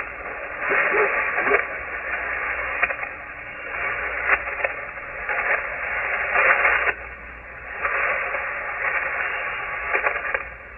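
Shortwave receiver tuned to the 40-meter amateur band, giving out static and hiss that swell and fade every second or two, with a few crackles.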